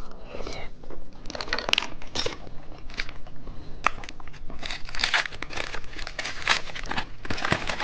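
Plastic candy wrappers crinkling in a steady run of irregular crackles as small packaged candies are handled and unwrapped.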